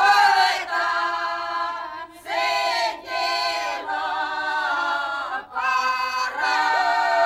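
A group of men and women singing together without accompaniment, in harmony. They hold long notes in phrases, with short breaths between them.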